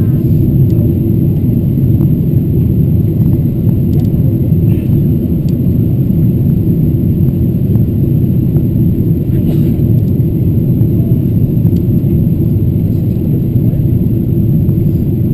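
Steady low cabin rumble of a Boeing 777-200ER airliner descending on approach, the airflow and engine noise heard from inside the cabin at a window seat.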